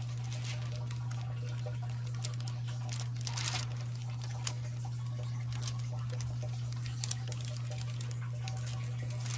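Steady low machine hum with scattered light clicks and patters: a short rustle about three seconds in and a sharp double click about seven seconds in.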